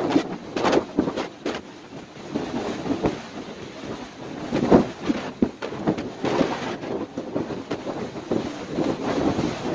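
Snowstorm wind gusting against the microphone in irregular blasts, a rushing roar that swells and falls, with a few sharp buffets in the first second and a half and a strong gust near the middle.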